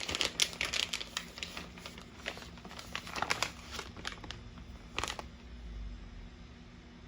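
Plastic bag of shredded cheese crinkling and rustling in irregular bursts as it is handled and shaken out, stopping about five seconds in.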